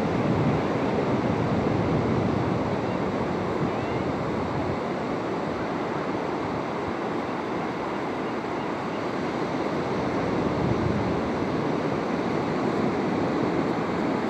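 Ocean surf washing steadily onto a sandy beach, a constant rushing that swells slightly near the start and again about ten seconds in.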